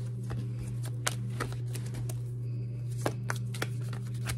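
A deck of cards being shuffled in the hands, with sharp card snaps about a second in and several more around three seconds in, over steady background music.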